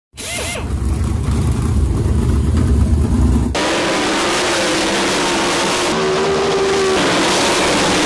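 A short gliding swoosh and a deep rumble, cutting abruptly about three and a half seconds in to 410 winged sprint cars racing flat out. Their V8 engines hold a dense, steady high-rev note.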